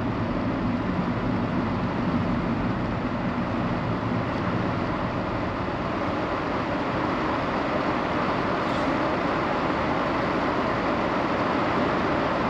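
Road and tyre noise inside a moving car. The low rumble eases after the first few seconds as the car slows to a stop, leaving a steady hiss.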